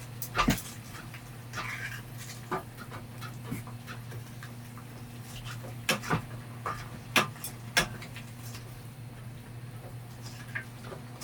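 Scattered sharp taps and knocks at an irregular pace over a steady low hum.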